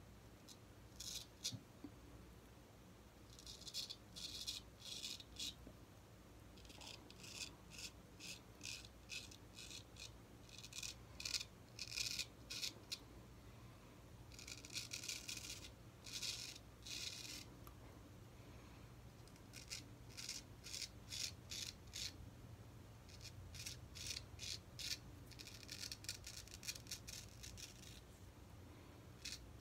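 Straight razor scraping through lathered four-day stubble in groups of short, quick strokes, with brief pauses between the groups.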